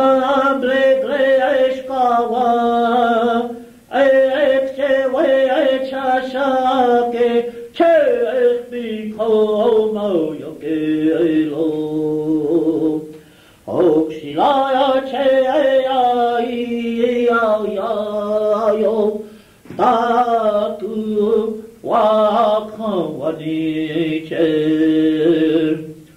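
Lakota song chanted in phrases of about four to six seconds, each held on steady notes, several sliding down to a lower pitch, with short breaks between them. The recording is an old cassette tape, so the sound is dull, with no top end.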